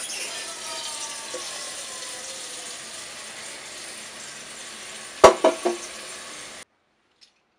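Water running steadily into a large metal pot, then a few loud metallic clanks about five seconds in. The sound cuts off suddenly near the end.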